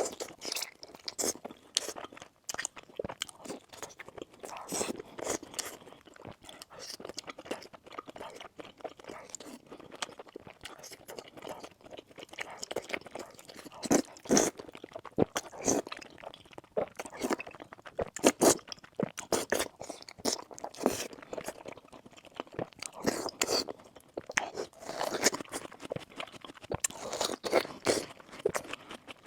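Close-miked eating: a person chewing and biting crunchy food, with dense crackling crunches and a few louder bites.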